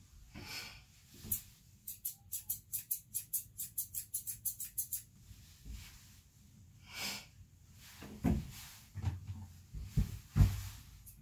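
Grooming scissors snipping in quick succession, about five cuts a second, for a few seconds. There are short hissing sounds before and after the snipping, and a few dull thumps near the end, the last one the loudest.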